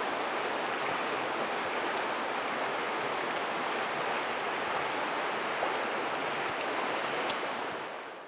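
Steady rushing of a fast, shallow stream riffle, fading away near the end.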